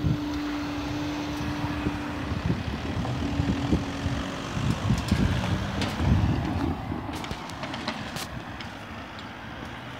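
Distant Class 47 diesel locomotive with a Sulzer twelve-cylinder engine, running with a steady hum as the train approaches. Wind buffets the microphone in gusts. The sound eases off near the end.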